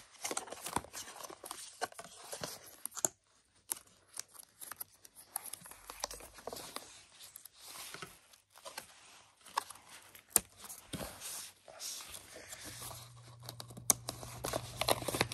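Paper and cardboard packaging rustling, crinkling and tearing, with sharp clicks and scrapes, as a braided MagSafe charging cable is worked out of its paper wrap and holder. A low steady hum comes in near the end.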